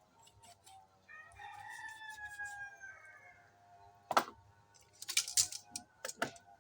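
A rooster crowing once, a call of about two seconds that slides down in pitch at the end. It is followed by several sharp clicks and clatters in the second half, the loudest about four seconds in.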